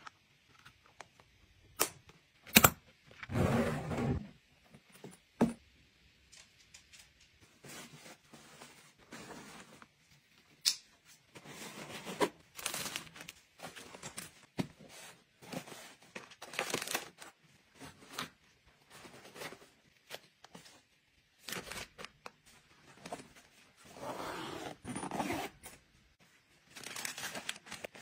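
Close-up packing sounds: a clear hinged plastic case clicking sharply as it is handled and closed, then a suitcase's fabric lining and small plastic packets being handled, in a series of short rustling, crinkling and scraping bursts.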